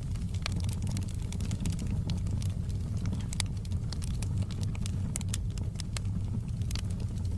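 Wood fire in a fireplace crackling: irregular sharp pops, several a second, over a steady low rumble of the flames.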